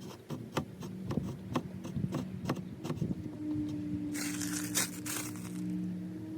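Work noise: a run of sharp clicks and taps, then two scraping hisses about four and five seconds in, over a faint steady low hum.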